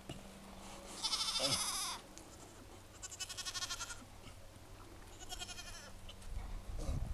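Goats bleating: three wavering calls, each about a second long and roughly two seconds apart, with a low rumble near the end.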